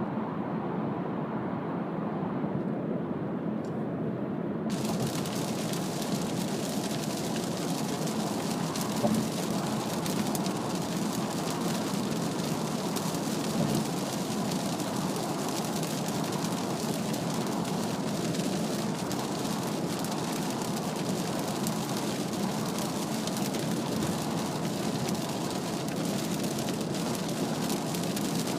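Steady cabin noise of a Mazda CX-3 at expressway speed in heavy rain, heard from inside: tyre and road noise on a wet surface with rain on the body. A higher hiss joins abruptly about five seconds in.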